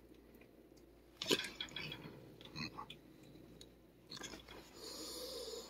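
A cat biting and mouthing at a thick leather protective glove while the glove rubs against its fur: leather scuffing with a few sharp clicks, the loudest about a second in, and a steadier rubbing hiss near the end.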